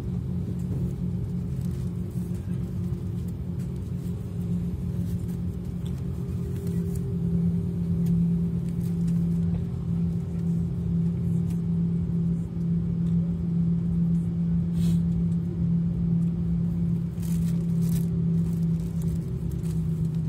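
Steady low drone of an Airbus A340 heard inside the cabin as the four-engined airliner moves across the apron, a constant hum that grows a little louder about seven seconds in.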